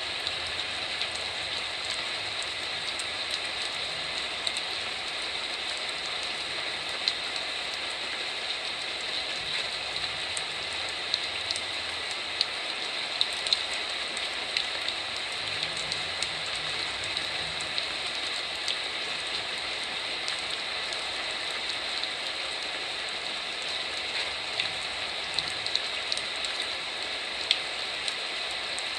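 Heavy typhoon rain falling steadily, a dense even hiss with scattered sharp taps of single drops striking.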